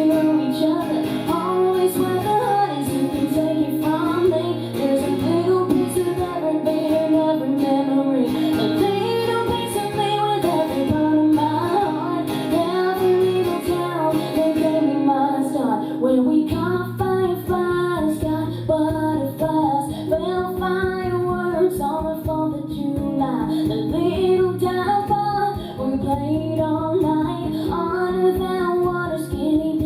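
A woman singing live with guitar accompaniment.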